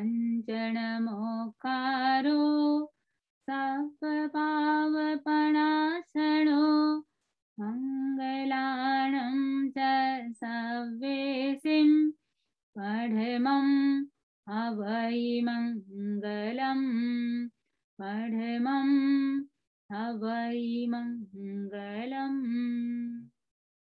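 A woman chanting a Jain devotional prayer solo, sung to a simple, slow melody in short phrases with brief breaths between them.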